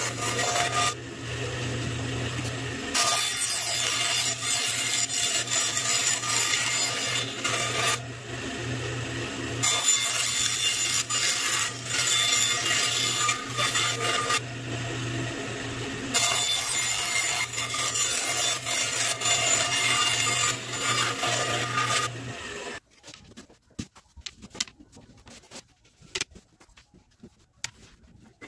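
Band saw running with a steady motor hum while it rips a thin wood strip. The cutting noise comes in several long stretches with brief lulls between them, then stops abruptly about 23 seconds in, leaving only a few light knocks.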